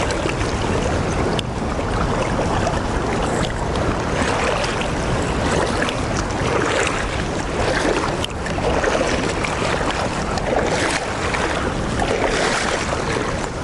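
Steady rushing noise of river current mixed with wind buffeting the microphone, rising and falling unevenly in strength.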